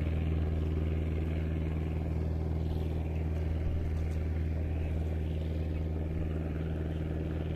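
A steady low engine drone: a motor running at a constant speed, with no change in pitch or level.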